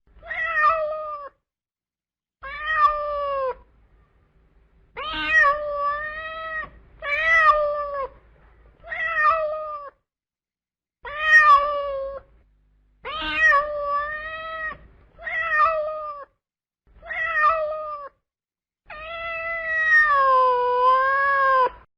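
Domestic cat meowing for food, about ten drawn-out meows with short pauses between them. The last meow is long and wavers down and up in pitch.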